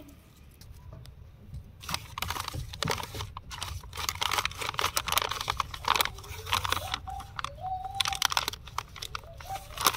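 Plastic detergent packets used as planters crinkling and crunching as hands handle them and the plant in them. A dense run of rustles starts about two seconds in.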